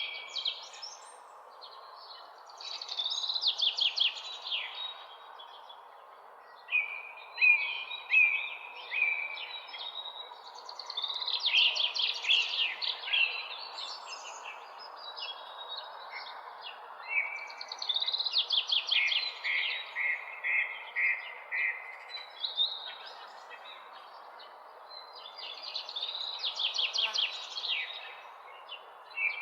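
Songbird singing a repeated song phrase about every four to five seconds over a steady background hiss. Each phrase is a fast run of high notes, followed by a row of evenly spaced chirps.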